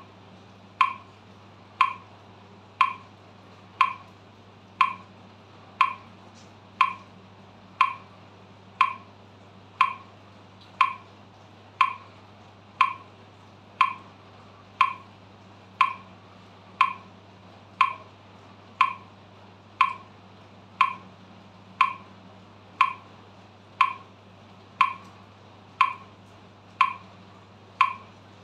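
Metronome ticking steadily at 60 beats per minute, one sharp click each second.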